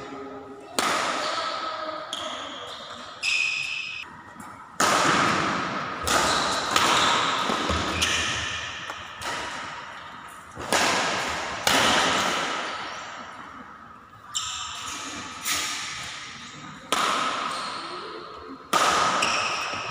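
Badminton rackets striking a shuttlecock in a rally: a sharp hit every one to two seconds, each ringing on in the echo of a large hall.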